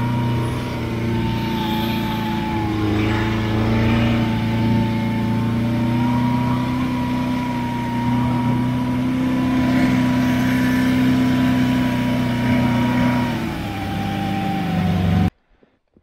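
Buran snowmobile's two-stroke engine running steadily under way, its pitch dipping and rising slightly, until the sound cuts off abruptly near the end.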